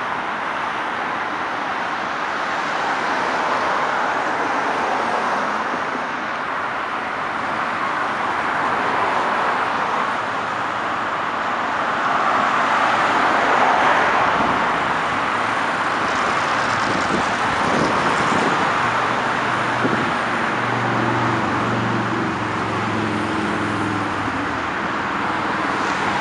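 Steady multi-lane highway traffic: a continuous rush of tyres and engines from passing cars, swelling as vehicles pass close about halfway through. In the last several seconds a low engine drone joins in, stepping up and down in pitch.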